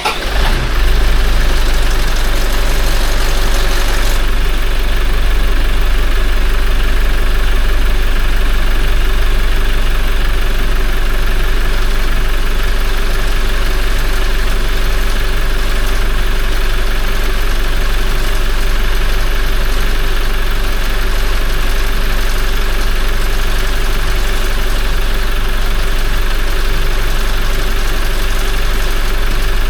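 Toyota 1GD-FTV 2.8-litre four-cylinder turbodiesel starting and settling into idle just after an oil and filter change. For the first few seconds the timing chain rattles, because the oil system is still empty, then the rattle stops abruptly about four seconds in as oil pressure comes up, leaving a steady diesel idle.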